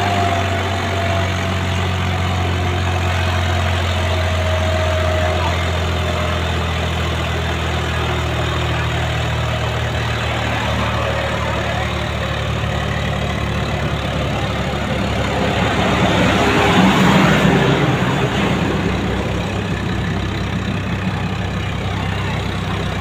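A vehicle engine running steadily at an even low pitch, with a louder swell as another vehicle goes by about sixteen to eighteen seconds in.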